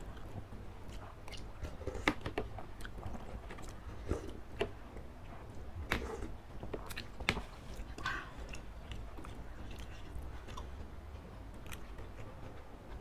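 Two people eating spicy laksa noodle soup close to the microphone: chewing, sipping and slurping broth from metal spoons, with scattered short clicks as the spoons knock against the dish.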